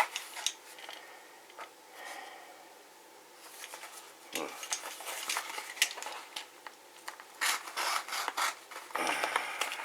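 A package of replacement filter capacitors being handled and opened: rubbing and scraping with scattered small clicks and taps, busiest near the end.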